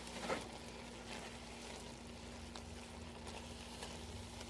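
Vegetable stew simmering quietly in a large pan as it is stirred with a slotted spatula, with a brief knock of the spatula against the pan near the start, over a steady low hum.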